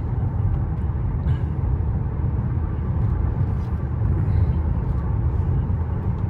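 Steady low road and tyre rumble inside the cabin of a 2024 Mercedes-AMG S580 cruising on the highway.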